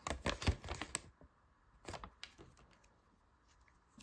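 Handling noise of a small toy and its paper insert: a quick run of crackles and clicks for about a second, then a few more clicks about two seconds in.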